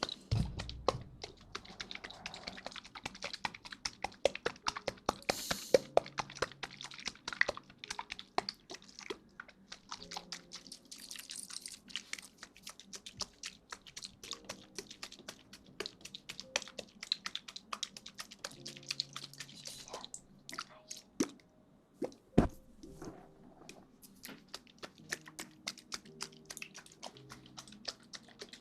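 Close-miked ASMR trigger sounds: a dense run of sharp little clicks and crackles, wet and crinkly, with short pauses between bursts. Faint background music runs underneath.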